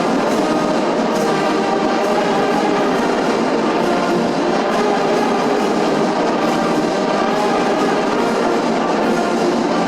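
A massed wind band of children and youths playing: brass and woodwinds sustaining full chords over light percussion.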